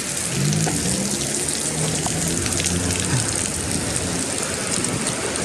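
Steady rain falling on a wet city street: a constant hiss of rain on pavement.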